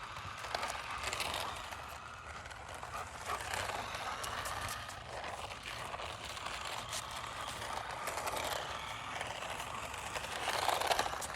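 Remote-control toy Jeep driving over grass: its small electric motor running and its wheels moving through the grass, with the level rising and falling as it goes.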